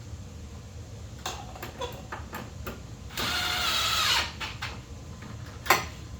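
Romex (NM) cable being handled and worked into a single-gang electrical box: scattered light clicks and taps, a scraping rasp lasting about a second past the middle, and one sharp click near the end.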